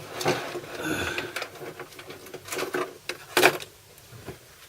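Clicks and knocks of an electrical tester kit being picked up and handled, with one louder knock about three and a half seconds in.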